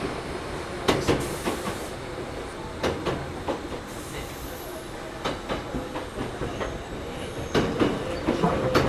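Toyohashi Railway 1800-series (ex-Tokyu 7200) resistance-controlled electric motor car running, heard from inside the car: steady rolling noise with wheels clacking sharply over rail joints. A steady hum comes in near the end.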